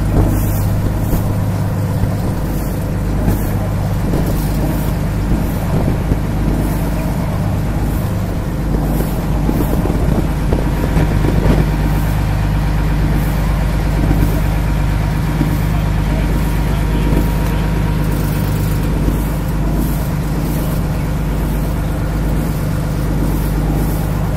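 Tour boat's engine running steadily while under way, a constant low drone.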